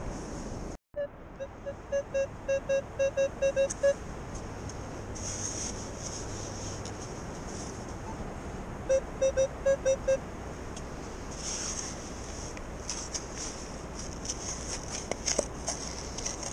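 Metal detector beeping: a run of short, identical beeps that come faster and louder for about three seconds, then a second run of six beeps about nine seconds in. A hiss with small clicks comes and goes in the second half.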